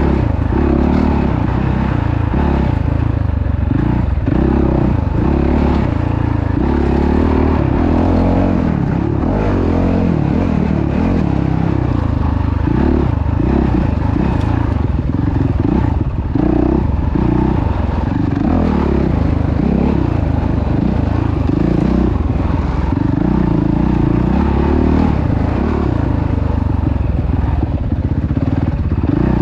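An off-road vehicle's engine running loudly throughout, its pitch rising and falling continually as the throttle changes.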